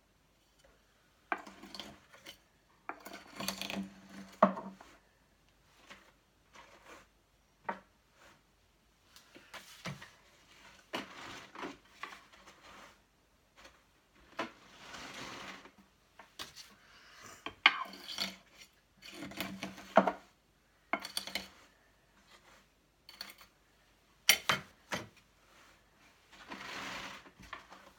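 Hands working carded wool on a Louet electric drum carder: irregular scraping and rasping as the fibre is pulled off the needle-covered drums, with sharp clicks and knocks against the machine and short quiet gaps between.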